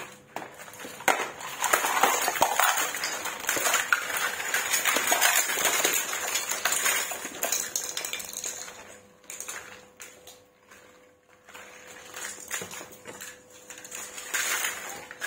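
Hard plastic toy animals and dinosaurs clattering against each other and the tile floor, a dense rattle of many clicks for several seconds, then scattered knocks as they are shifted about and a short clatter again near the end.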